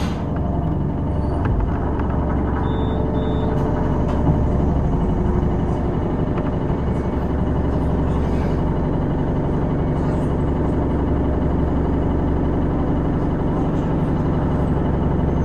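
City bus engine idling while the bus stands still, a steady low hum heard from inside the passenger cabin.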